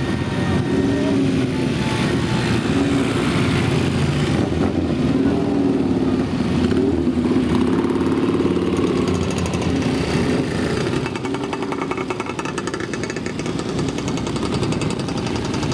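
Several vintage motorcycle engines running at low speed as the bikes ride past one after another, their overlapping engine notes wavering up and down. The sound eases off a little in the last few seconds.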